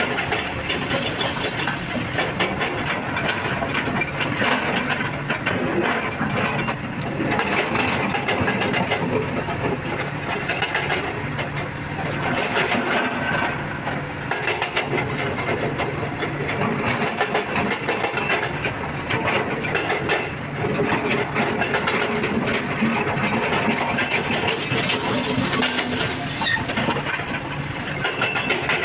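Excavator's diesel engine running under load, with a steady clatter and rattle of material and machinery as it works.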